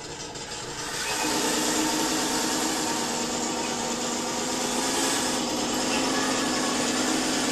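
Radio-controlled model tank running, its electronic sound unit playing a simulated tank engine through a small onboard speaker. The steady engine drone starts about a second in and holds.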